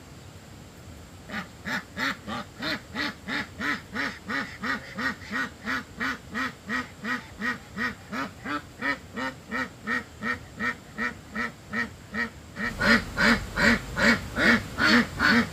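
Domestic duck quacking over and over in an even rhythm, about three quacks a second, starting about a second in and getting louder near the end.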